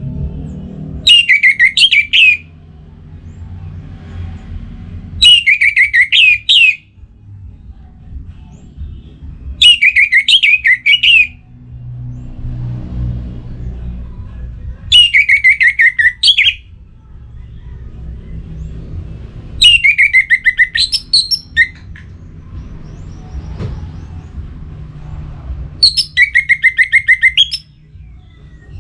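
Orange-headed thrush singing: six short bursts of song a few seconds apart, each a rapid run of falling notes. A low background rumble runs beneath the song.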